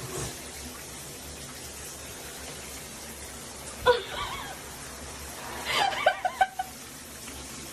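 Short bursts of a person's laughter about four seconds in and again around six seconds, over a steady background hiss.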